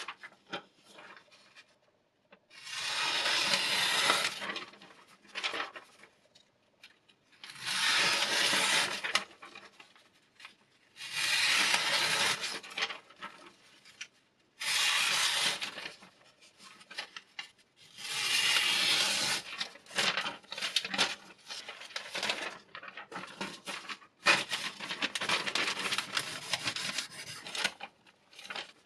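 Diamond sharpening stone drawn along a steel knife edge in a guided sharpener, in about six long rasping strokes of one and a half to three seconds each, with shorter scrapes in between.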